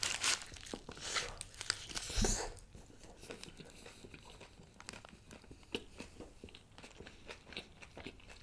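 A person biting into a kathi roll, loudest in the first couple of seconds, then chewing it with many small mouth clicks.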